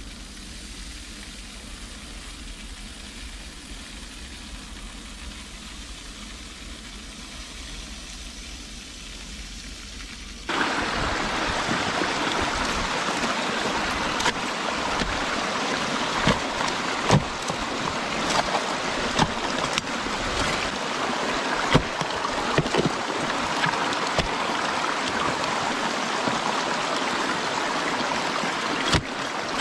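A faint low hum for about ten seconds, then water rushing and splashing through a beaver dam, with sticks knocking now and then as they are pulled out of the dam by hand.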